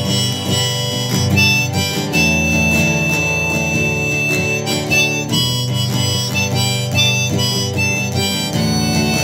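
Harmonica played from a neck rack over strummed acoustic guitar chords, an instrumental break between sung verses. About two seconds in, the harmonica holds one long high note for a couple of seconds.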